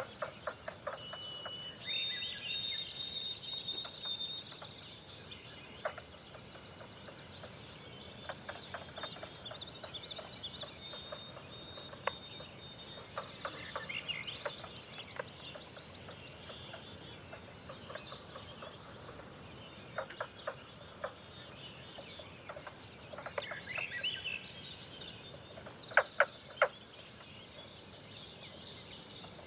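Wild birds calling and singing at dawn: high trilled songs and chirps with clusters of rapid clicky notes. A few sharp clicks near the end are the loudest sounds.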